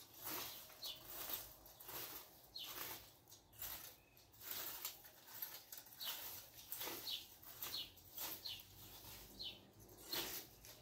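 Rake scraping over bare dry dirt in repeated pulling strokes, roughly one a second, with short high chirps now and then between the strokes.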